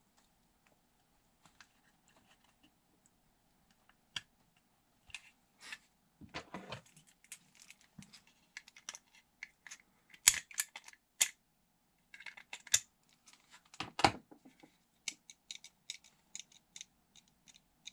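Small 3D-printed plastic pistol-grip parts being handled and worked with a small screwdriver as a magazine release is fitted: scattered sharp plastic clicks and short scrapes. They begin about four seconds in and come thickest and loudest around ten to fourteen seconds.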